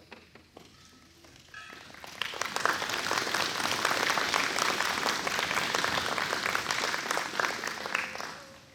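Audience applauding. The applause starts about two seconds in, holds steady, and dies away near the end.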